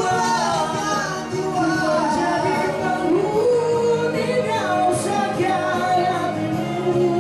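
A man singing live into a handheld microphone over accompanying music, carried through PA speakers.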